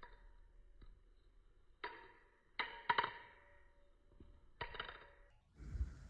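Metal handles of a butterfly knife (balisong) clacking during flipping: several sharp clicks, each ringing briefly, with a quick cluster of three in the middle. A dull low thump comes near the end as the knife is caught closed.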